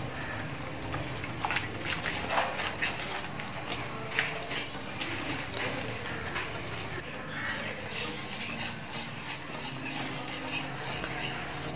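Wire whisk mixing wet rice-flour batter in a stainless steel pot, its wires clicking and knocking irregularly against the pot.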